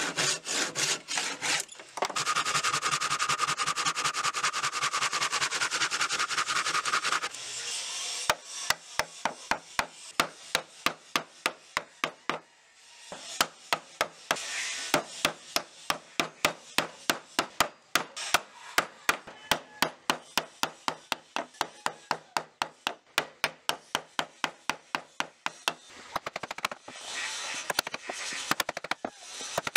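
Hand tool work on wood: fast scraping strokes for the first several seconds, then a long run of sharp, evenly spaced taps, about two a second, broken by a short pause near the middle.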